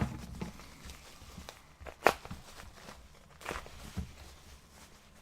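Lightsaber packages and parts being handled and set down: scattered knocks and thumps, with one sharp click about two seconds in.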